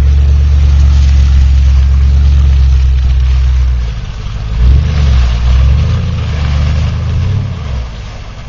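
Chevy Avalanche's V8 engine revving hard under load for about four seconds, easing off, surging again about five seconds in, then fading as the truck pushes through mud.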